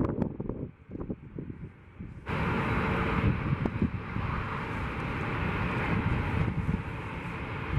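Boeing 757 jet engines running, a steady rushing roar that comes in suddenly and much louder about two seconds in, over low rumble and wind on the microphone.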